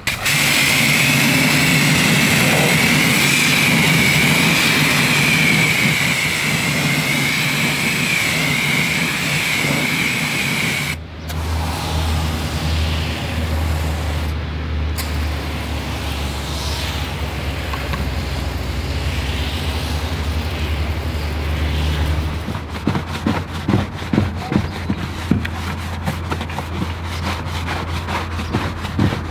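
High-pressure spray hissing onto a foamed car wheel over the hum of a pressure washer. After a break a steady low machine hum runs on, and in the last few seconds a long-handled brush makes quick, repeated scrubbing strokes inside the wheel arch.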